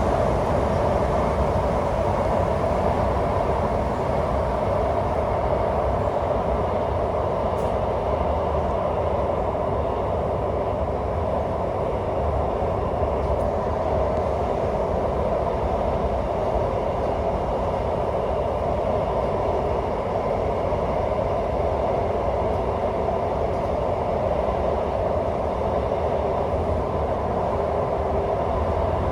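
Alstom C751A electric metro train running steadily at speed, heard from inside the carriage: a constant rumble of wheels and motors with a steady buzz on top.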